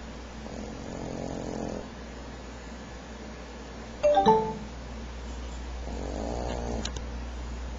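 Boston terrier snoring: two slow snoring breaths about five seconds apart. Between them, about four seconds in, comes a brief, sharp sound that is louder than the snores.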